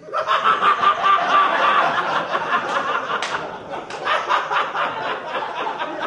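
Audience bursting into laughter after a punchline: a sudden, loud wave of many people laughing that gradually eases off.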